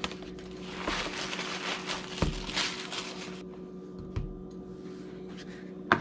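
Paper bag rustling and crinkling as donuts are taken out and set down on plastic plates, with a few soft thuds on the countertop. Near the end a small cardboard box is set down with a sharp knock, over a steady low hum.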